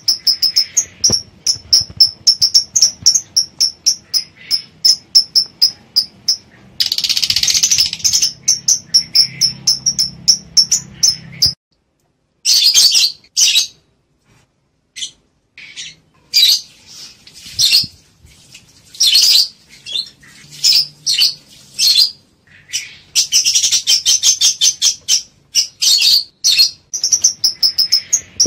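Lovebirds chirping in fast runs of high, sharp calls, several a second, with a denser chattering burst about seven seconds in and a couple of short pauses. These are the calls of lovebirds in breeding condition, ready to mate.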